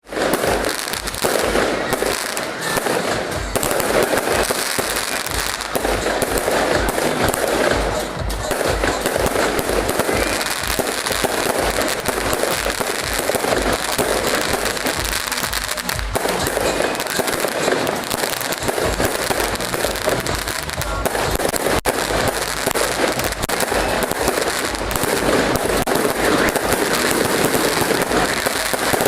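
Fireworks display: a dense, unbroken run of bangs and crackling shell bursts, one on top of another.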